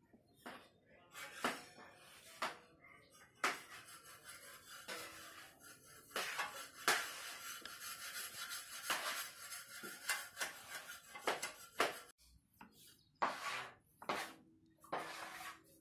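Kitchen knife cutting through a slab of milk powder burfi and knocking on a wooden table: a run of sharp taps about once a second, with a longer stretch of scraping as the blade is drawn along the slab in the middle.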